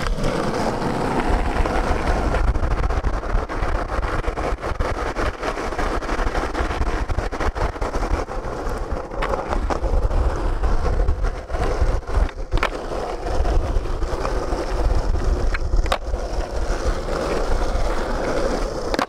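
Skateboard wheels rolling with a steady rumble over rough asphalt, broken by a few sharp clacks of the board.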